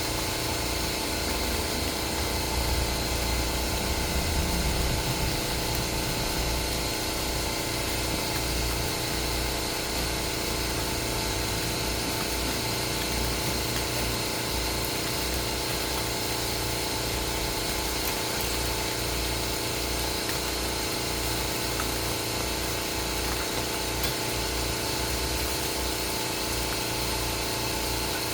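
A steady mechanical hum with a low rumble, like an engine running.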